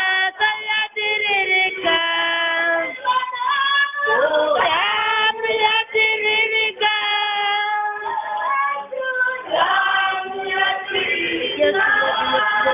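Women's voices singing a worship song: long held high notes with slides between pitches.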